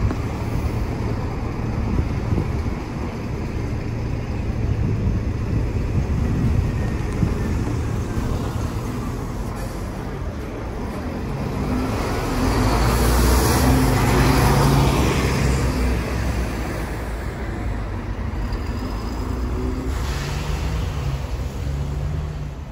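Diesel bus and coach engines running at a bus station, with a Bus Éireann Expressway coach driving close past, its engine loudest about halfway through.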